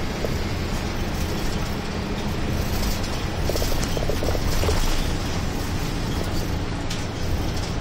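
Route bus cruising along a road, heard from inside the cabin: a steady engine hum with tyre and road noise and a few faint rattles.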